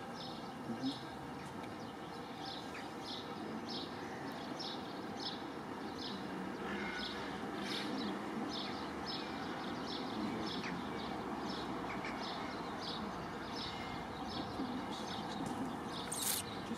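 Class 66 diesel locomotive's two-stroke V12 engine running as the train approaches slowly, a steady low rumble that grows a little louder partway through. Over it a bird chirps repeatedly, about twice a second.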